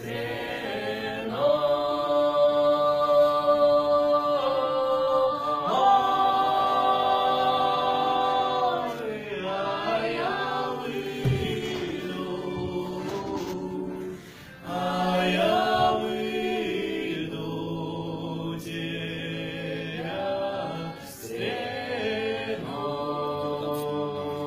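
A small group of men and women singing a slow song a cappella in harmony, with long held notes. There is a short break between phrases about two thirds of the way through.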